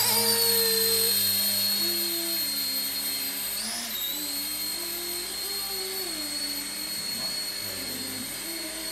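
A toy remote-control helicopter's small electric motors and rotors whining at a high pitch as it flies, loudest just after lift-off. The pitch briefly rises and dips about four seconds in.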